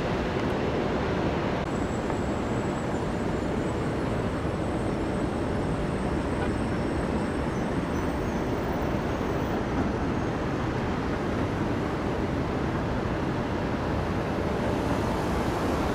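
Airliner jet engines at takeoff power: a steady, even rumble with a faint high whine.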